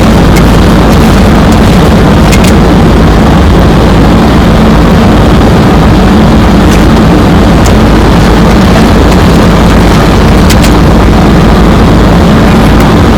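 Steady, loud flight-deck noise of an airliner in flight: rushing airflow over the cockpit and a low engine hum, with a few faint clicks.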